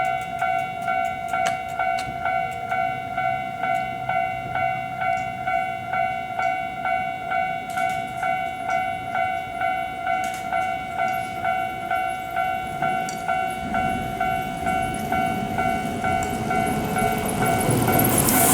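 Japanese level crossing warning bell ringing its steady, rapidly repeating electronic "kan-kan" tone. A train approaches from about two-thirds of the way through, its rumble growing louder near the end.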